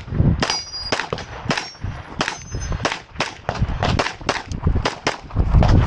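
Glock 34 9mm pistol firing a rapid string of shots, often in quick pairs, with a brief pause about three seconds in.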